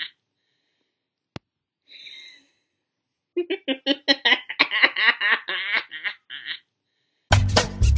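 A woman's villainous laugh: a run of short, rhythmic 'ha' pulses lasting about three seconds, after a faint click and a brief breath. Music starts near the end.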